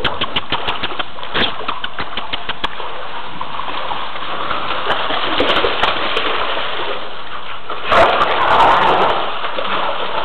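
Steady rain noise, with a quick run of ticks in the first few seconds and a louder rush about eight seconds in.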